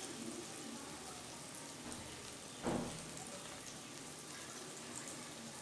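Cornflour-coated paneer cubes sizzling gently in a little oil in a pan on low heat, a faint, even crackle as the second side browns. One brief knock about two and a half seconds in.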